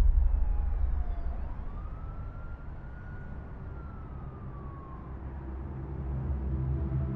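A faint siren wails once, rising then slowly falling in pitch, over a low rumble that fades over the first couple of seconds.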